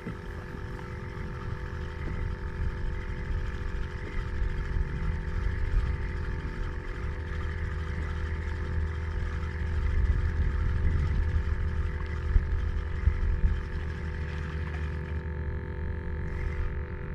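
Wind buffeting the microphone in gusts, a ragged low rumble that grows stronger about midway, over a faint steady hum.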